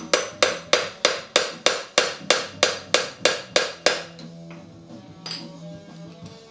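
A run of about fourteen sharp, ringing knocks, about three and a half a second, stopping about four seconds in, over background guitar music that carries on alone.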